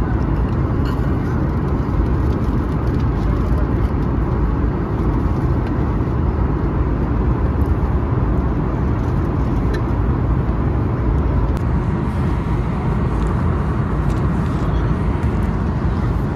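Steady low rumble of a passenger airliner's cabin, the engines and airflow heard from inside.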